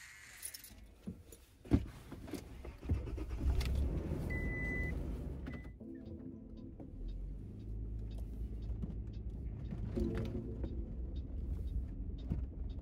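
Clicks and clatter with one sharp knock, a short beep, then a vehicle running with a low steady rumble from about six seconds in.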